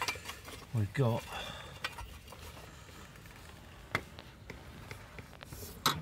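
Scattered clicks and light knocks from handling a spark plug lead's rubber boot on an ignition coil pack tower, with the sharpest snap near the end.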